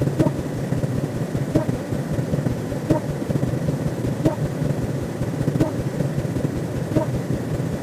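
Sound-effect ambience: a continuous low rumble with a short chirp-like tick about every second and a half.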